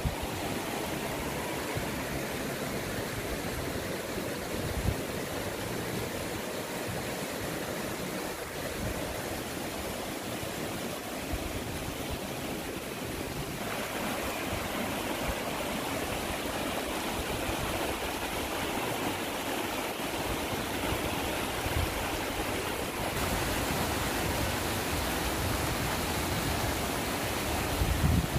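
Steady rushing of a swollen, muddy river in flood. About halfway in it grows louder and brighter as water churns over rocks in a rapid.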